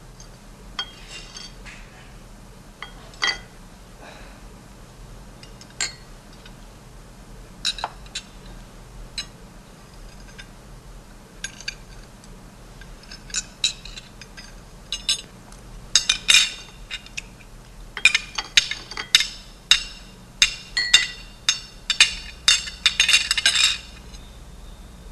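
Cutlery and dishes clinking at a dinner table: single clinks every second or two at first, then quick runs of clinks and clattering about two-thirds of the way in, growing thicker and louder toward the end.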